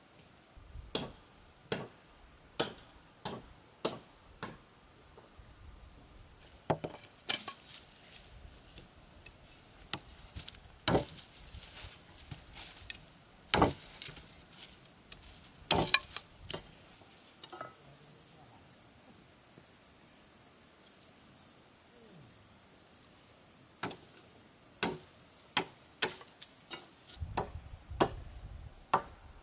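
Repeated chopping, a blade striking wood in sharp single strokes, at times about two a second and then more irregular, with short pauses. A steady high insect trill comes in about halfway through.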